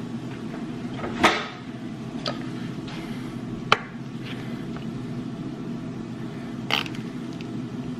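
A few separate sharp knocks and clinks, four in all and spread a second or more apart, over a steady low hum.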